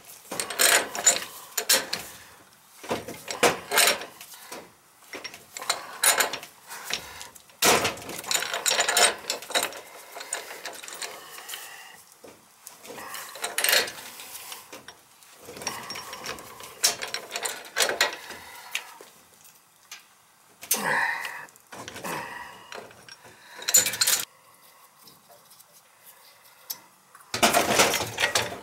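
Pipe wrench working the threaded fitting of a boiler's gas valve: irregular metallic clicks, clanks and scraping as the wrench grips, turns and is reset on the fitting.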